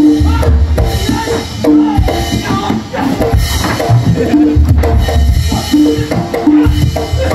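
Javanese gamelan playing fast fight music: kendang drums beating deep strokes in a quick, uneven rhythm, under short repeated metallophone notes.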